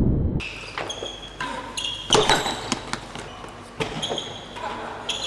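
A real tennis rally: a string of sharp knocks as the solid ball is struck and rebounds off the walls and floor, with short high squeaks of shoes on the court floor between shots.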